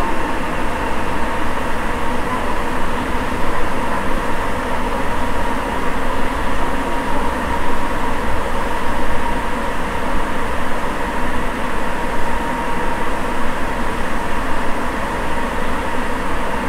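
Sapporo Municipal Subway 9000 series rubber-tyred train running at speed between stations, heard from inside the car: a dense, steady running rumble with a constant whine on top.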